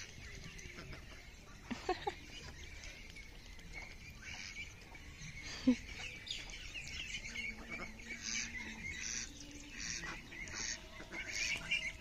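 A flock of domestic ducks calling: a busy, continuous stream of short quacks and chirps, with one louder call a little before six seconds in.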